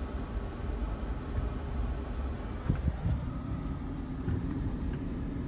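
Steady low rumble of a car running, with engine and road noise.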